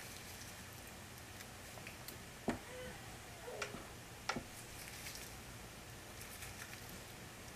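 Faint ticking and crackling of locs being parted and twisted with a plastic rat-tail comb in gloved hands, with two sharper clicks about two and a half and four seconds in.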